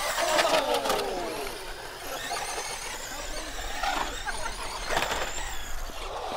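Brushless electric motors of RC trucks whining up and down in pitch as they are throttled around a concrete bowl, loudest in the first second, with a few sharp knocks near the start and again about five seconds in.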